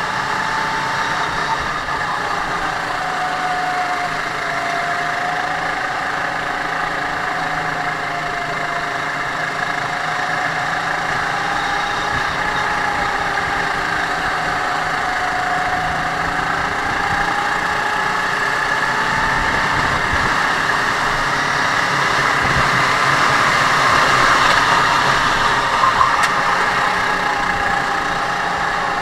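Racing kart engine heard onboard at racing speed, its pitch gliding up and down as the kart speeds up on the straights and slows for the corners, slightly louder about three-quarters of the way through.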